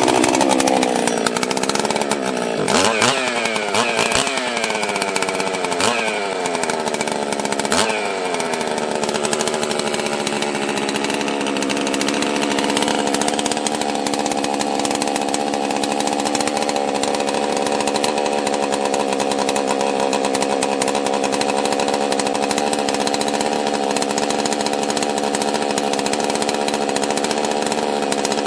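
Husqvarna 261 two-stroke chainsaw running just after starting, its engine speed dipping sharply and picking back up four times in the first eight seconds or so, then running at a steady speed. It runs really weird; the owner suspects a weak ignition coil, or else the carburetor.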